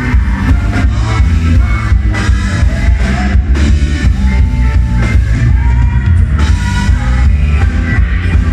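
A live rock band playing loudly, with drums, electric bass, guitar, keyboards and saxophone. A steady drum beat runs under heavy bass.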